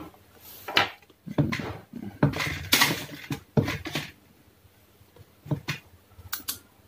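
Handling noise: a handheld digital multimeter and its test probes being moved about on the workbench, a run of knocks and scrapes over the first few seconds, then two short knocks near the end.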